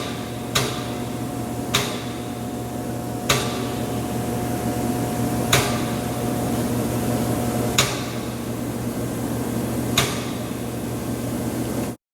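Moore No. 3 jig grinder running with a steady hum, a sharp click sounding every one to two seconds; the sound cuts off abruptly near the end.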